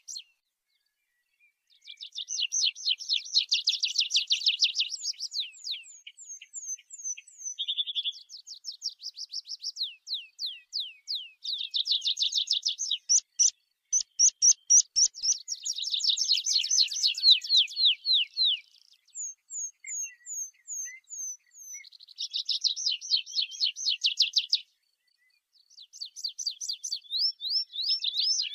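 Tree pipit (Anthus trivialis) singing: several high song phrases of fast trills and runs of repeated notes, some made of down-slurred whistles, separated by short pauses.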